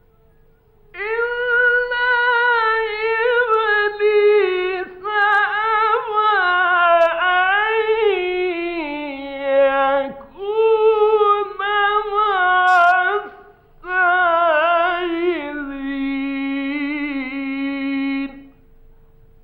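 A man reciting the Quran in the melodic mujawwad style, in four long ornamented phrases with short breaths between them, starting about a second in and ending near the end. A faint steady high hum from the old 1950s radio recording runs beneath.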